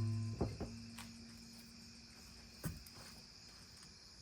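Crickets chirping steadily in the background, with the fading ring of a thunk at the start and a few light clicks.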